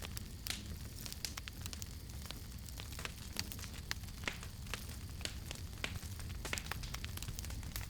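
Campfire crackling: frequent, irregular sharp pops and snaps over a low, steady rumble.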